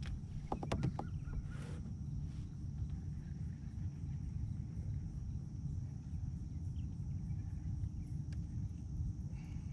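Insects droning steadily at a high pitch over a steady low rumble, with a few sharp clicks about a second in and another near the end.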